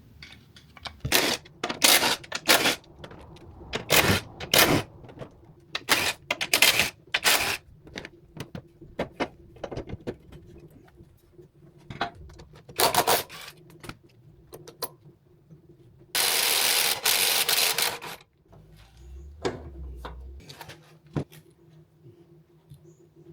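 Workshop clatter: metal parts and hand tools clinking and knocking many times over, with a steady hiss lasting about two seconds a little past the middle.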